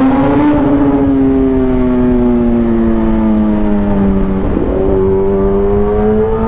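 Kawasaki ZX-10R superbike's inline-four engine under way, its pitch slowly easing down for about four seconds, then climbing again after a brief break about four and a half seconds in as the bike picks up speed. Low wind rush runs underneath.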